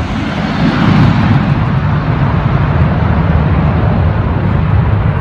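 Aircraft engines running with a loud, steady rumble, heavily buffeted by wind on the microphone.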